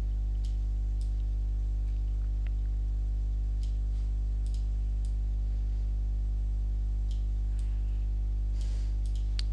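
Scattered clicks of a computer mouse and keyboard, about a dozen in all, several in quick succession near the end, over a steady low electrical hum.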